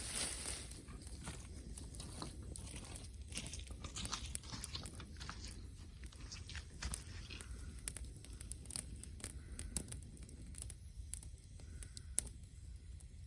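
Wood campfire crackling, with many irregular sharp pops and snaps over a faint hiss, and one sharper pop near the end.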